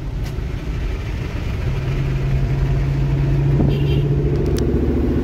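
Engine and road noise heard from inside a moving car pacing a 2003 Ford Mustang SVT Cobra convertible, its supercharged V8 among the engine sounds. A steady low engine drone, with a second, higher engine tone coming in about four seconds in.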